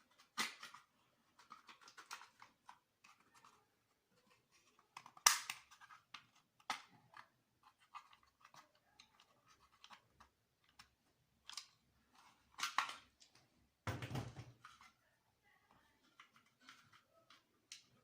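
Small plastic and metal parts of an opened circuit breaker handled and clicking during repair work. The sounds are scattered and sudden, with a sharp click about five seconds in and a dull knock around fourteen seconds.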